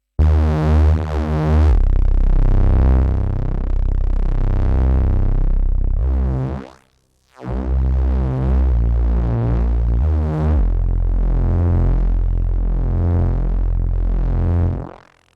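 UDO DMNO synthesizer playing sustained, bass-heavy chords whose tone sweeps and swirls slowly. It sounds in two long phrases with a brief gap about seven seconds in.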